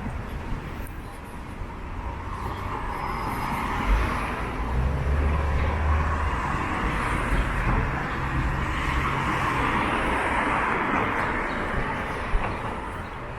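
City street traffic: motor vehicles passing close by, with the hiss of tyres swelling over several seconds and a low engine rumble from about four seconds in, easing off near the end.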